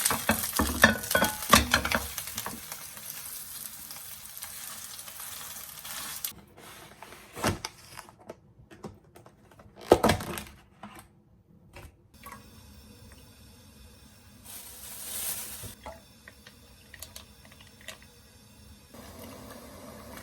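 Food sizzling in a frying pan with utensils knocking against it, which stops abruptly about six seconds in. Scattered clinks of dishes follow, with one loud knock near the middle and a brief hiss later on.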